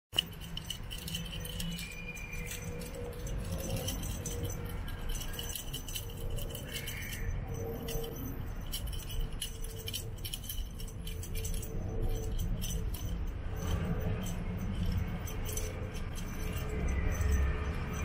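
Background music with a light jingling, rattling sound throughout.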